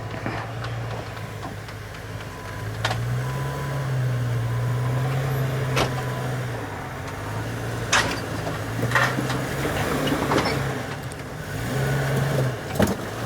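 Off-road 4x4 engine working at low speed over rocks, revving up and easing back down several times. About half a dozen sharp knocks are scattered through, such as tires or underbody striking rock.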